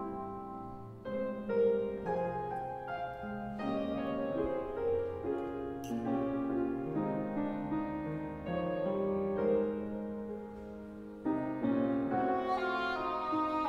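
Cor anglais and piano playing classical chamber music, held notes over piano chords; the music steps up in loudness about eleven seconds in.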